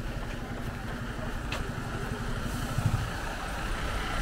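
Steady low engine rumble, with one faint click about a second and a half in.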